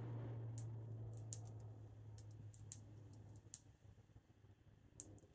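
Faint, irregular clicks of the number wheels on a brass Brinks resettable combination padlock being thumbed round to the factory combination 0-0-0. A low steady hum runs underneath and fades out about three and a half seconds in.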